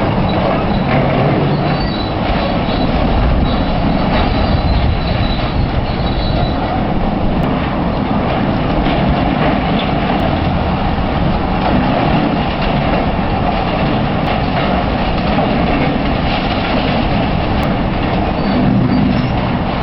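Heavy excavators running under load with deep engine rumble and ongoing clatter and crunching as they break down a concrete wall.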